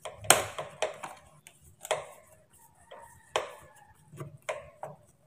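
Screwdriver turning the screw of a small clamp on a gold alloy fitting on a scooter's drain tube: sharp metal clicks and taps at uneven intervals, the loudest about a third of a second in.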